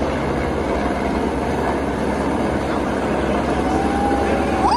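Helicopter flying in overhead, its rotor and engine making a steady low drone under crowd chatter. Near the end a long whistle from the crowd holds one note, then rises sharply.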